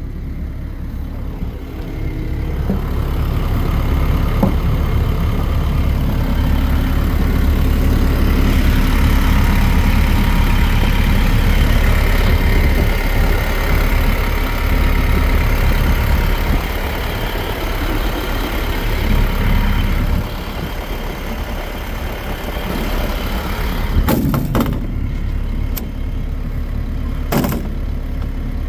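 Kobelco SK215SRLC excavator's diesel engine running; a couple of seconds in it grows louder and stays up for about eighteen seconds, then settles back toward idle. A few sharp knocks near the end.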